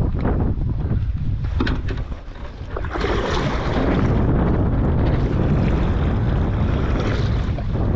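Strong wind buffeting the microphone with a heavy low rumble, over water rushing and slapping around a small kayak. A few light clicks come in the first two seconds, and the rush grows louder and fuller from about three seconds in.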